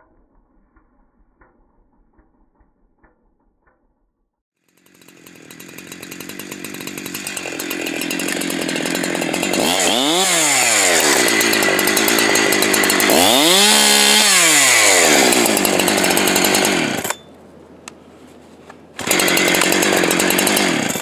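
Farmertec Holzfforma clone two-stroke chainsaw running at high revs, building up about five seconds in and holding loud for roughly twelve seconds. It cuts off suddenly, then runs loud again for the last couple of seconds.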